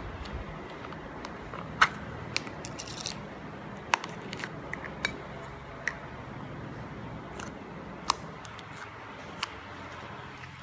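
Slime being squished and stretched by hand, giving irregular small clicks and pops over a soft steady rustle.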